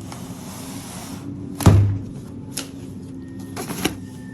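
A car door shutting with one heavy thud about one and a half seconds in, followed by a few lighter clicks and knocks.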